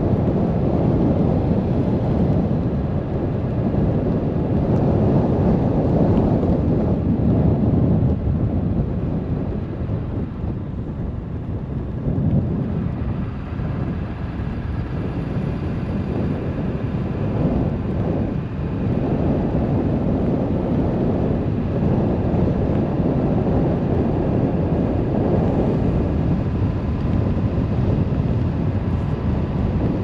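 Low, fluctuating rumble of wind buffeting the microphone together with road noise from a moving vehicle.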